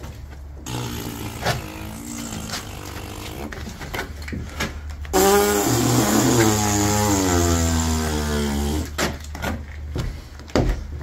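Thickened epoxy filler being squeezed out of a plastic bag: a loud, fart-like pitched sputter starts about five seconds in and lasts roughly four seconds, over a steady low hum.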